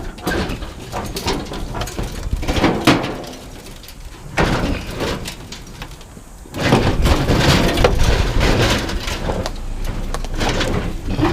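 Metal parts of a scrapped barbecue grill knocking and clattering as they are handled and pulled apart. A denser, louder rumbling noise comes in a little past halfway.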